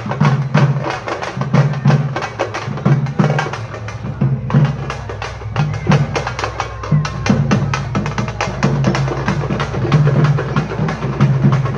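Fast drumming: a dense, even run of sharp drum strikes over a steady low droning tone that shifts pitch every second or so.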